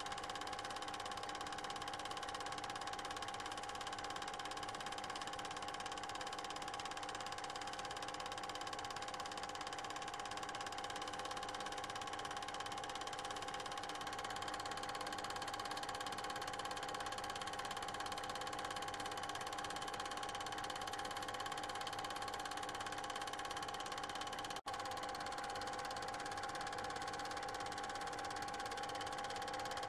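Steady machine hum made of several fixed tones, unchanged across the picture cuts, which marks it as noise from the transfer of a silent 8mm cine film, not sound of the scenes shown. It drops out for an instant near the end.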